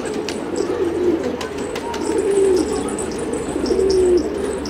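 Domestic pigeons cooing at the loft: several low, wavering coos, with a few light clicks just after a second in and faint high chirps over the top.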